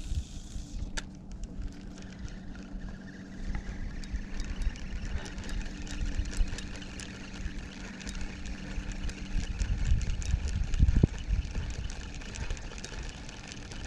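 A steady low engine hum, which fades out about eight seconds in, under wind rumbling on the microphone, loudest around ten to eleven seconds, and many faint sharp ticks.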